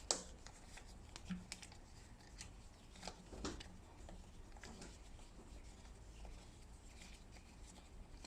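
Faint, scattered clicks and light scrapes of hand work as a stock screw is taken out of a mountain-bike brake caliper, the sharpest click at the start.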